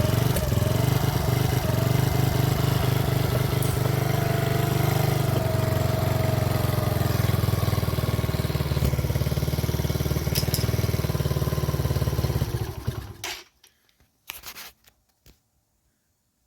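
Mini ATV's small engine, with its Mikuni carburetor newly adjusted, idling steadily and running smoothly, then shut off about 13 seconds in. A couple of faint clicks follow.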